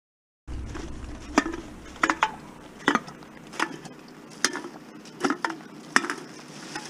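Empty bottles and cans knocking and clinking against each other as they are picked up off wet pavement one by one: about a dozen sharp knocks, roughly one every three-quarters of a second, starting about half a second in.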